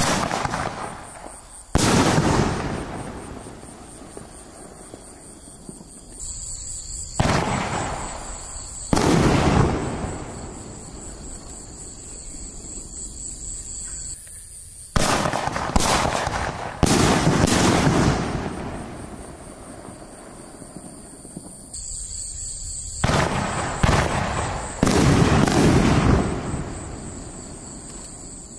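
50 mm single-shot firework mortar tubes firing shells: each sharp launch is followed a second or two later by a loud burst in the air that trails off over several seconds. First one shell goes up, then shells go up in quick pairs.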